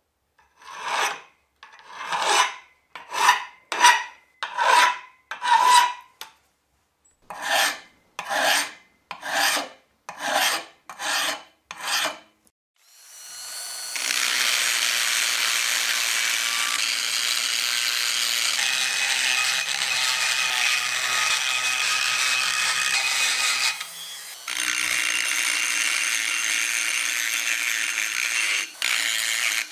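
A hand file rasping across a rusty iron crank handle clamped in a vise: about a dozen strokes, roughly one a second, with a short pause midway. About halfway through, a rotary tool with a small grinding stone spins up and grinds steadily along the handle, dropping off briefly near the end before running again.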